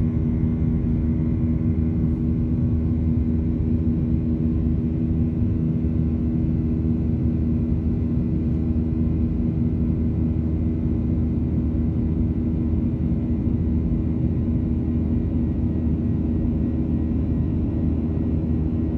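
Boeing 737-800's CFM56-7B turbofan engines heard inside the cabin beside the wing: a steady, even drone with a low rumble and a few held hum tones.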